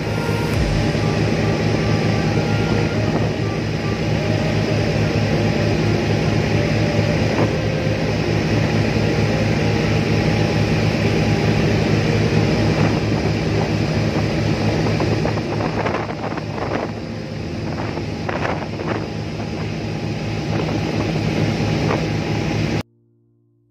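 Tugboat's diesel engine running steadily under load while towing a barge, with a steady low drone and rapid even pulsing, over the rush of wash and wind. The sound cuts off abruptly just before the end.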